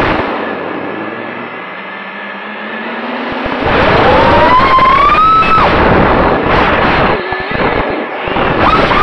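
Brushless electric motors of an FPV drone, heard through its onboard camera with air rushing past. The motor whine falls away at the start as the craft flips. About four seconds in, the whine climbs sharply in pitch as it powers up, followed by short throttle blips near the end.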